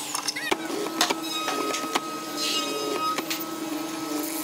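Hollow-chisel mortiser running: a steady motor hum with several sharp knocks.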